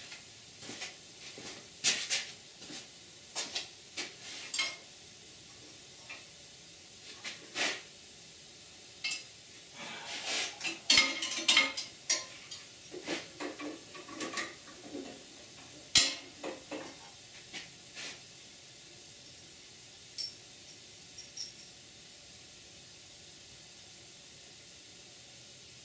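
Scattered metallic clicks and clinks of a hole saw, its pilot drill bit and hand tools being handled at a drill press while the bit is refitted; the drill press itself is not running. The clicks come thickest about ten to twelve seconds in and thin out after about eighteen seconds.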